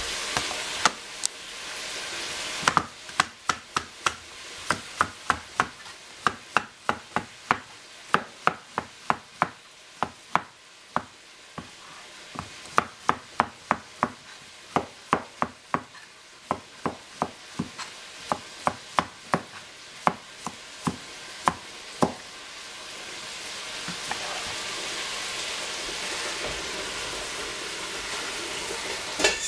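Knife chopping food on a cutting board: a steady run of sharp chops, about two or three a second, over food sizzling in a frying pan. The chopping stops about two-thirds of the way through, and the sizzling carries on.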